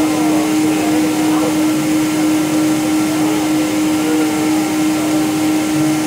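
Steady roar of a Boeing 777-200's jet engines heard inside the passenger cabin, with a strong steady hum running through it.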